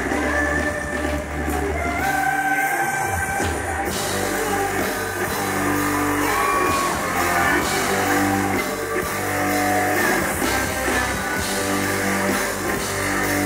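Pop song playing loud with a steady beat, women singing over it.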